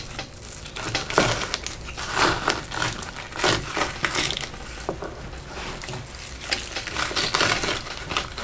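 Fillet knife cutting and scraping between a walleye fillet and its skin on a wooden cutting board, in irregular sawing strokes. The blade is not very sharp.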